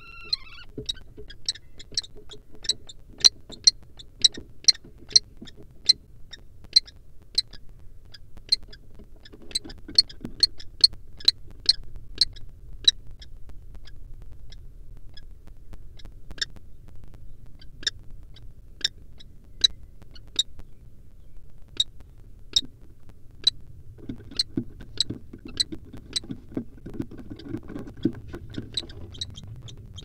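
Kestrel calling: a run of short, sharp high notes at about two a second, which thins out around the middle and picks up again near the end, over a low rumble.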